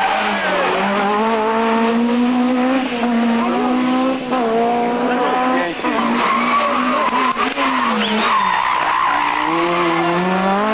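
Rally car engine at full throttle, its pitch climbing as it revs out and dropping sharply on gear changes and lifts. There is a tyre squeal about eight seconds in, and the engine revs climb again near the end.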